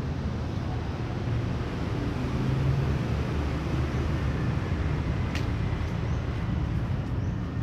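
Steady low rumble of background vehicle noise, with a single sharp click about five seconds in.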